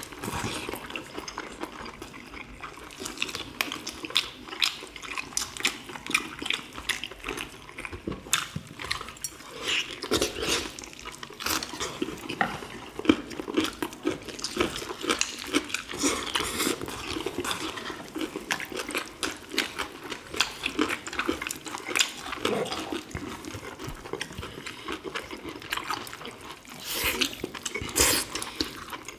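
Close-up eating sounds of boiled chicken eaten by hand: wet chewing, lip smacking, and sucking and tearing meat off the bones, with a couple of sharper clicks near the end.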